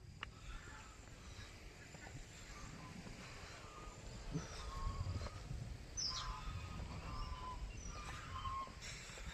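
Birds calling faintly in short, scattered chirps over a low background rumble, with a few louder calls about halfway through.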